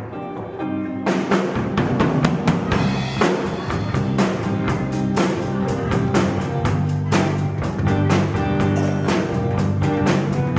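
Live band playing a rock song: a guitar plays alone, then the drum kit and the rest of the band come in together about a second in, with a steady beat of drum hits.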